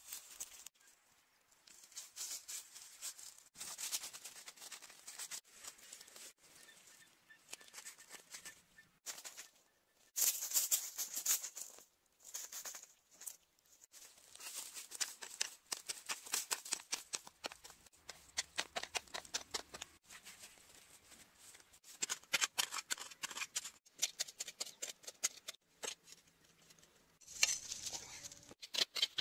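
Gloved hands scraping and pulling through dry grass, twigs and loose soil: dense crackling and rustling that comes in irregular spells with short pauses between.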